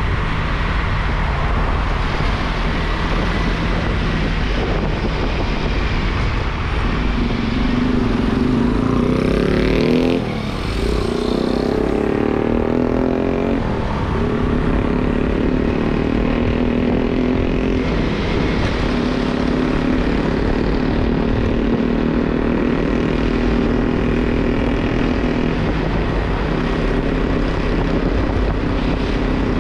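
Motorcycle engine running while riding, with wind rushing over the microphone. The engine note dips briefly about ten seconds in, then picks up again.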